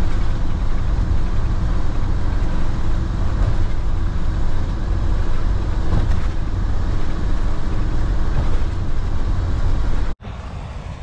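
Steady road and engine noise inside the cab of a motorhome driving at highway speed, a loud, even rumble that is strongest in the low end. It cuts off abruptly near the end, leaving a much quieter steady hum.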